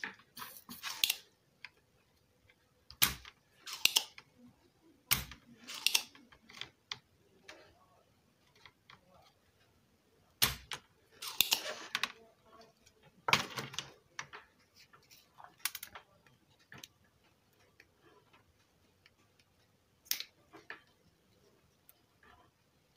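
A spring-loaded desoldering pump (solder sucker) being cocked and fired again and again: about a dozen irregular sharp clicks and short rasps, loudest a little before halfway through, as solder is sucked off the joints of the car stereo's faulty volume control to take it off the front-panel board.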